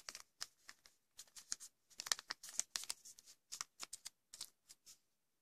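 A folded sheet of origami paper being handled and creased by hand: irregular soft crinkles and rustles, with a short pause near the end.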